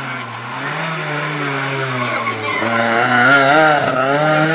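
Rally car's engine revving hard as it comes down the stage and passes close by, its pitch rising and dropping with throttle and gear changes. It is loudest about three seconds in, as the car goes past.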